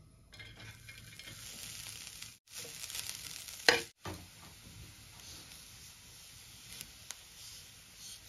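Grated coconut sizzling in a hot pan as it is stirred and scraped with a metal spatula, with a sharp clack of the spatula about three and a half seconds in. The sound cuts out briefly twice.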